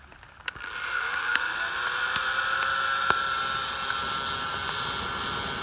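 Electric air mattress pump switched on about half a second in, its motor whine rising and settling into a steady hum with a rush of air as it blows into a campfire to revive the flame. A few sharp pops are heard over it.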